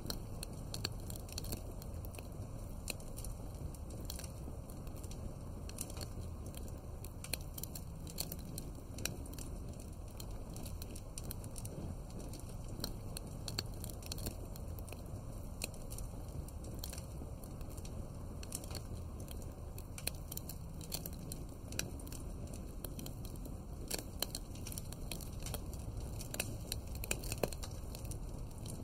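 Wood fire crackling, with irregular sharp pops and snaps over a low steady rumble of the flames.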